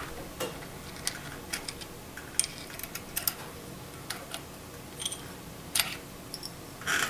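Scattered small, irregular clicks and ticks of fingers unscrewing the metal top cap of a 100cc ATV's carburetor, the cap's threads and rim clicking as it turns.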